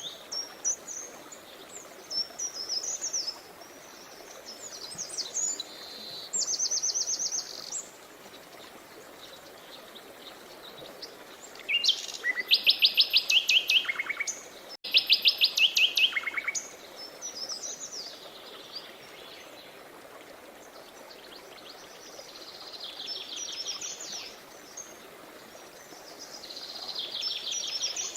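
Songbirds singing in repeated high, fast-trilled phrases, loudest around the middle, over the steady rush of a river. The sound cuts out for an instant about halfway through.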